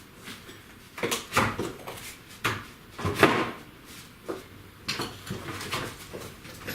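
A cut timber floor joist being knocked and shuffled into position: several wooden knocks and scrapes, the loudest a little past three seconds in.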